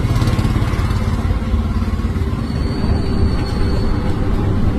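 Auto-rickshaw engine running close by amid road traffic: a steady, low, rapidly pulsing rumble.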